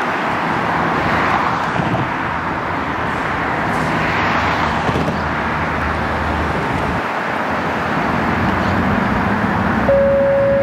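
Ambulance engine running as it pulls out, over steady street traffic noise. About ten seconds in, a single steady tone starts.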